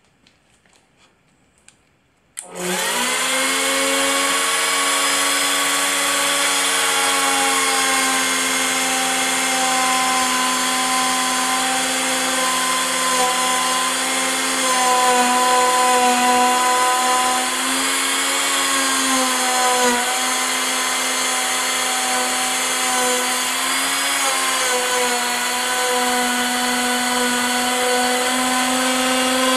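Electric handheld router switching on about two seconds in and running at full speed with a high whine, the pitch sagging slightly now and then as the bit cuts a 3/4-inch groove in 6061 aluminum plate.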